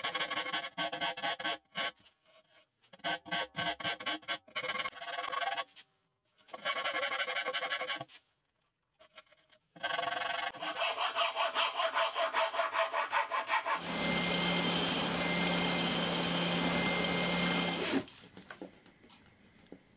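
Hand rasp and file stroking back and forth across the edge of a plywood template, in quick runs of strokes broken by short pauses. Near the end the strokes give way to a steady humming noise for about four seconds, which then stops.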